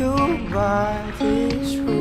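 Background music: a slow song, its melody sung in long, wavering notes over sustained accompaniment.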